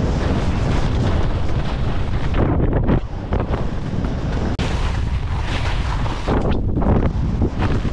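Wind buffeting the microphone of a GoPro action camera during a fast ski descent, a loud continuous rush with heavy low rumble, mixed with the skis scraping and chattering over firm snow.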